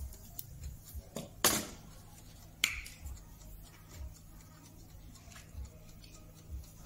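Kitchen scissors snipping cooked bacon: a few short, sharp snips, the loudest about a second and a half in.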